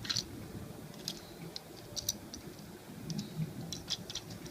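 Scattered light plastic clicks and taps as a Transformers action figure and its gun accessory are handled, with the gun being pushed into the figure's hand.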